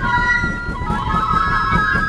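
A troupe of pinkillos, Andean wooden duct flutes, playing a folk melody together in parallel lines, with drumming underneath.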